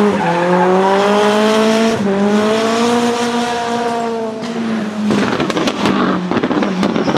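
Slot car's small electric motor whining, its pitch sinking and rising again several times as the car slows and speeds up around the track. From about five seconds in the whine fades under a rough, crackling rattle.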